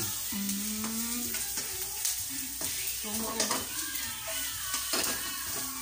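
Onion, garlic and ginger sizzling in margarine in a frying pan over a gas burner, with scattered clicks and scrapes as they are stirred and the pan is moved.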